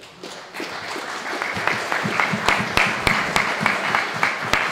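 Audience applauding, many hands clapping, swelling over the first second and then holding steady.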